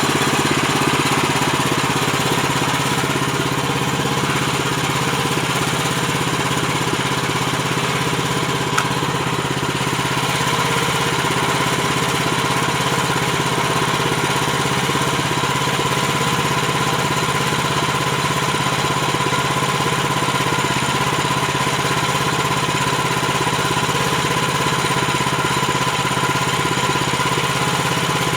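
Engine of a Woodland Mills HM130MAX portable bandsaw sawmill running steadily, with a steady high whine that grows stronger about a third of the way in.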